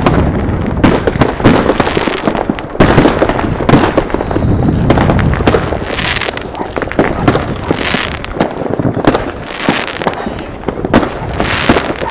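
Many fireworks going off in a dense, unbroken run of bangs, pops and crackles, with aerial shells bursting overhead.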